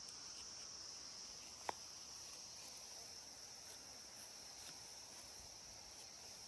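Insects chirring in a steady high-pitched drone, with a single sharp click about a second and a half in.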